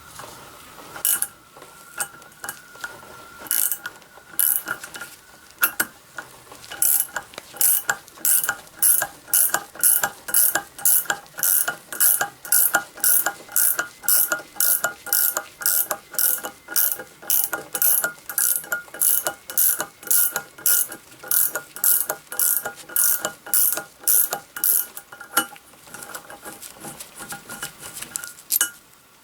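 Ratchet wrench clicking in short back-and-forth strokes, about two a second, as it backs an M6 exhaust stud bolt out of a Honda CB400 cylinder head. The strokes start irregularly, then settle into a steady rhythm, and turn lighter and quicker near the end as the stud frees up.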